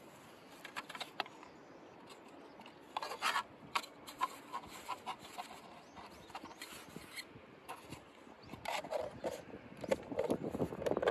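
Cloth bag rustling and rubbing against plastic as it is pressed into a 3D-printed plastic brake rotor cover, with scattered light clicks and knocks. The handling gets louder and busier near the end as the cover is closed.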